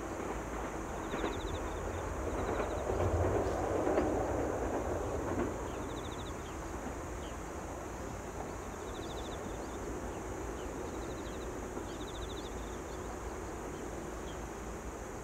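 Toyama Chiho Railway electric train running past at a distance: a rumble with a few clicks swells a few seconds in, then fades away.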